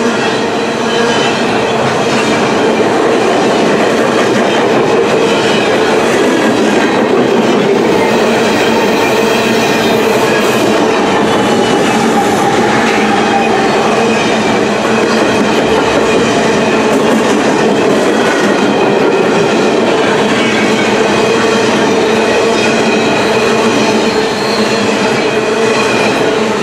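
Steel coal cars of a long freight train rolling past at speed: a loud, steady rumble and rattle of wheels on rail, with steady ringing tones from the wheels held over it.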